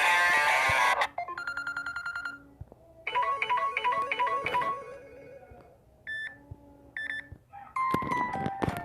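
Samsung Galaxy J2 Prime ringtone and notification sounds played one after another: a loud ringtone cut off about a second in, then a quick run of short tones, a short melodic jingle, a two-note chime played twice, and another melodic tone starting near the end.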